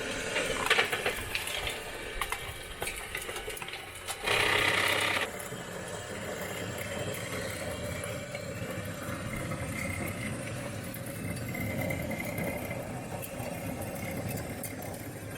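Small electric motors of a radio-controlled construction model whirring steadily. A louder, higher whirr about four seconds in lasts about a second.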